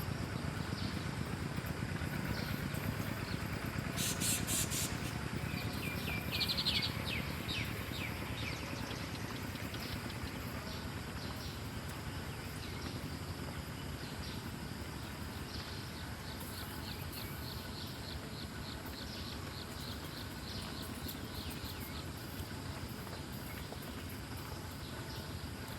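Birds chirping over steady outdoor background noise: a quick run of sharp chirps about four seconds in, a louder call shortly after, then faint, rapidly repeated chirping.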